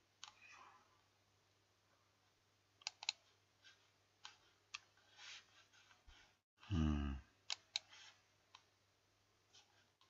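Faint, scattered computer mouse clicks, some in quick pairs, as web pages are opened. About seven seconds in, a man makes a short wordless vocal sound.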